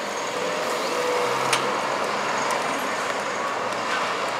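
Diesel tour coach's engine running as it drives past, over a steady wash of street traffic noise. A single sharp click about one and a half seconds in.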